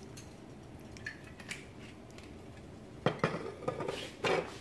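Several sharp clinks and knocks of kitchenware being handled around the stovetop, bunched together in the last second and a half.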